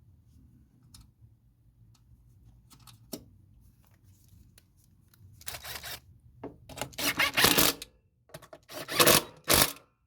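A handheld power tool, such as a cordless impact driver working the mower blade bolt, run in several short loud bursts from about halfway through, after a few seconds of light clicks and handling.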